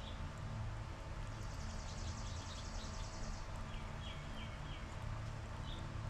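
Songbirds singing: a rapid, high, dry trill lasting about two seconds, then a short run of about five repeated lower notes, over a steady low background hum.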